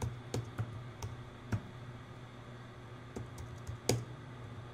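Computer keyboard keys and mouse buttons clicked at irregular intervals, a handful of short sharp clicks, over a low steady hum.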